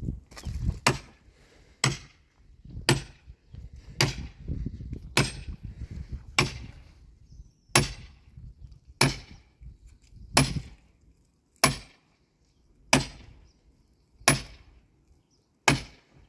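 Axe chopping into a dead, dry tree trunk: about thirteen sharp blows at a steady pace, a little over one a second.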